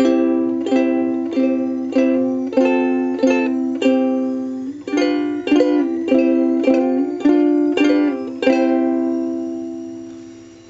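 Soprano Ashbury ukulele strummed in chords, a strum about every half second, with a change of chord about five seconds in. The last chord is left to ring and fades away over about two seconds, resonating nicely.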